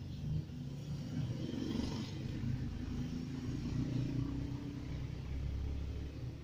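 Transformer soldering gun (Cooper Tools, 120 V) fitted with a cutter tip, giving a low buzzing hum while its hot tip melts through soft plastic.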